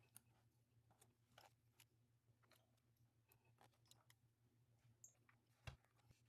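Near silence: faint, scattered clicks and ticks of small screws and parts being handled during camera reassembly, over a faint steady low hum, with one soft thump near the end.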